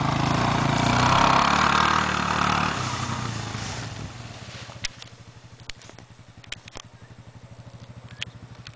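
ATV (four-wheeler) engine running, loud for the first few seconds and then settling into a quieter, steady idle with an even pulse. A few sharp clicks sound over it.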